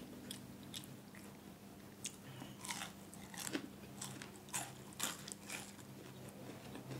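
A person biting and chewing crunchy dendeng (dried spiced meat) close to the microphone: irregular crisp crunches, loudest and most frequent in the middle.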